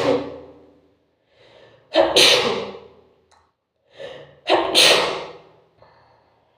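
A person sneezing hard, three times in a row: the tail of one sneeze at the start, then two more about two and a half seconds apart, each preceded by a short sharp intake of breath.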